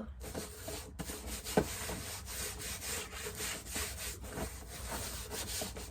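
Construction paper on a cardboard shoebox being handled and worked, giving a run of rustling, scraping strokes, several a second.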